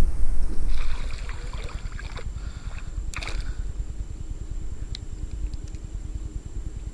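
Wind rumbling on the microphone, loudest in the first second, with water splashing and sloshing as a small fish is reeled up and lifted out of the water among lily pads.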